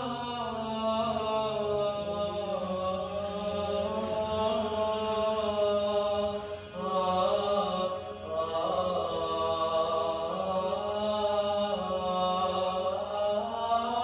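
Closing music of vocal chant: voices hold long notes in a slowly moving melody over a steady low drone.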